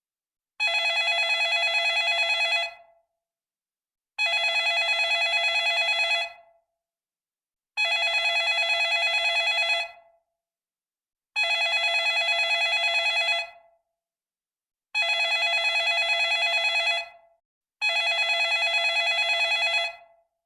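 Retro telephone ringing: six rings of about two seconds each, each with a fast rattle and a short fade-out, separated by pauses of about a second and a half, the last pause shorter.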